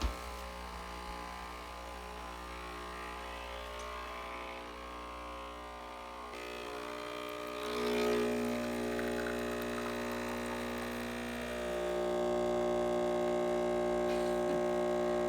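A short click, then a Breville espresso machine's pump humming steadily as it pulls a double shot. The hum shifts about six seconds in and grows louder from about twelve seconds in.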